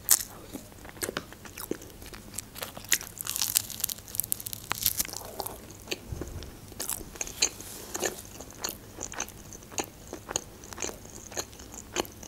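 A person eating close to a clip-on microphone: crunchy bites of toasted shawarma and chewing, with many short sharp crackles and mouth clicks.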